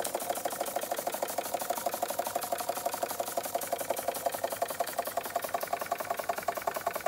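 Bing Vesuv live-steam toy vertical engine of about 1903 running under steam, with a rapid, even beat that holds steady throughout.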